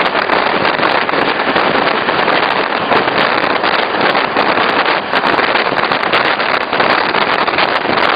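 Regional train running: a loud, steady rushing noise.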